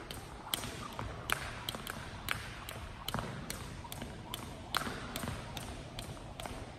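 Jump rope slapping a hardwood gym floor in a steady rhythm, about two and a half sharp slaps a second, with the jumper's sneakers landing softly.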